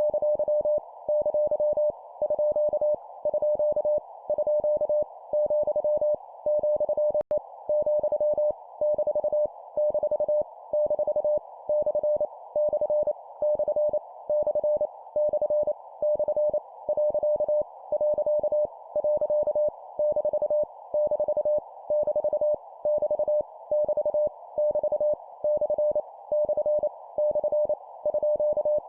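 Morse code (CW) practice tone at 25 words per minute: a single pitch of about 600 Hz keyed into random punctuation characters, each sent three times, with short regular pauses between groups. A band of receiver-like hiss stays under the tone throughout, and there is one brief click about seven seconds in.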